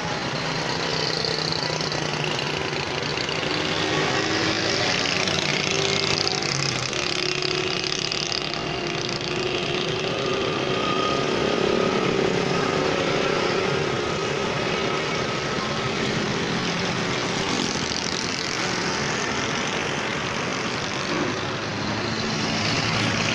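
Road traffic noise: truck and motorcycle engines running, a steady dense mix of engine sound with no single vehicle standing out.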